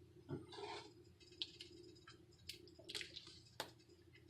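Faint squishes and light clicks of lemon juice being squirted onto sliced avocado.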